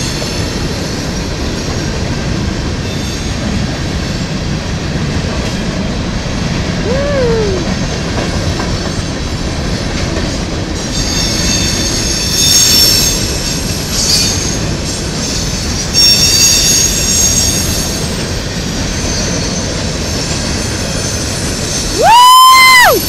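CSX freight train of covered hopper cars rolling through a grade crossing: steady rumble and clatter of wheels on rail, with high-pitched wheel squeal coming and going twice. Near the end, a brief loud high-pitched squeal rises and falls.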